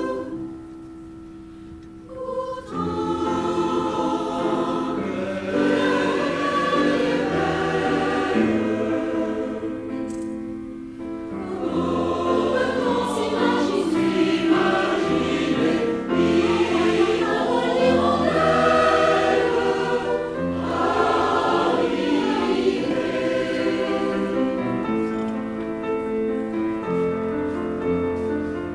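Mixed choir of men's and women's voices singing in harmony, quiet for the first couple of seconds and then at full voice.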